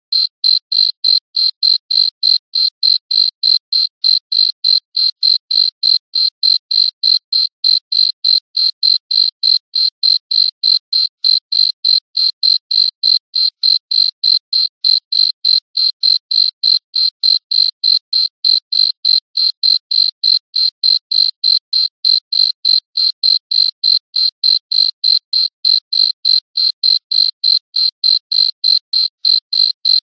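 Handheld radiation detection meter beeping a high-pitched electronic tone in a steady, even rhythm of about three beeps a second. This is the meter's audible signal that it is detecting radiation.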